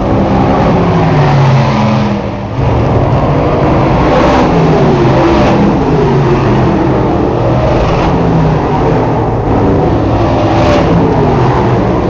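A pack of open-wheel dirt-track race cars (big-block and 358 small-block V8 modifieds and sportsman cars) running together on the track. Their engines sound as a loud, continuous blend, with pitches rising and falling as the cars rev up and back off.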